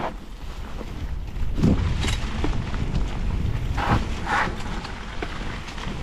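Mountain bike rolling down a dirt singletrack over dry leaves, with a steady wind rumble on the microphone. There are a few short rattling knocks from the bike over bumps, the loudest a little under two seconds in and about four seconds in.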